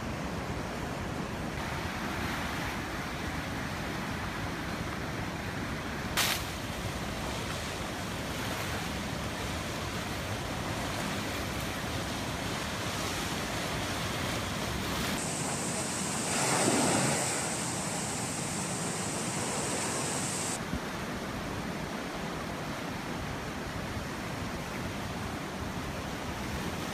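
Muddy floodwater river rushing past in a steady roar, with wind buffeting the phone microphone. A sharp knock sounds about six seconds in, and the rush swells briefly about two-thirds of the way through.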